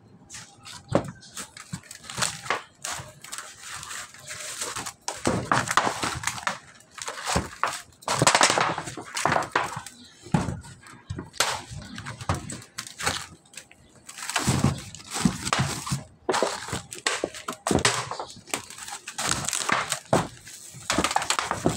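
Irregular rustling, scraping and knocking of someone moving about on a corrugated metal roof among breadnut branches, dry leaves and fallen fruits, some knocks loud and sharp.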